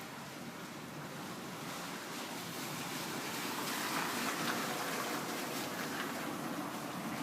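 Rain and wind rushing in a thunderstorm, a steady noise that grows louder over the first few seconds.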